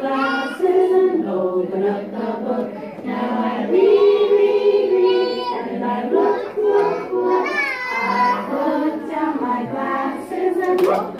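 A group of young children singing a nursery song together, with sustained sung notes throughout.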